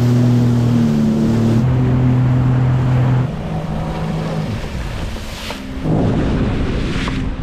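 Jet ski engine running steadily, with water spray and wind on the microphone. The engine drone drops away about three seconds in, and a loud rush of churning water comes in near the end with the engine still running underneath.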